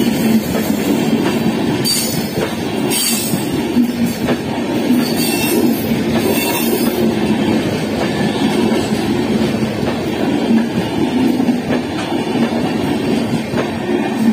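Indian Railways express passenger coaches passing at speed close by: a loud, steady rumble and rattle of wheels on rail. A few short high hissing swells come in the first half.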